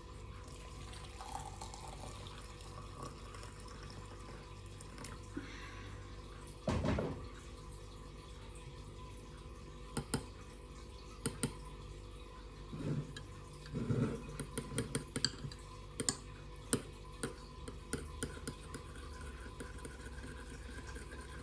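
Hot water poured and dripping into a cup of chopped ginger and mint to steep into tea. A run of scattered small drips and clicks comes in about halfway through.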